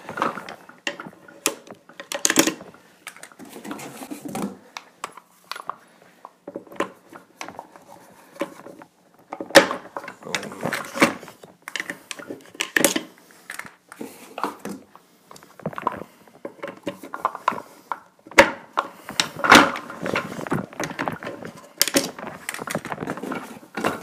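Office chair casters being worked out of and into the plastic star base with hands and a screwdriver: irregular plastic clicks, knocks and scrapes, with a few sharper snaps.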